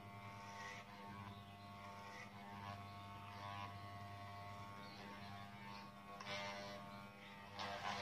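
Corded Wahl electric hair clipper buzzing steadily while cutting hair at the side of the head, with a brighter rasp that comes and goes several times as the blades run through the hair.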